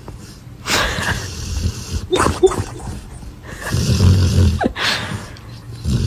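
A large dog snoring in its sleep: a low, rough snore on each breath, several breaths one to two seconds apart, the deepest about four seconds in.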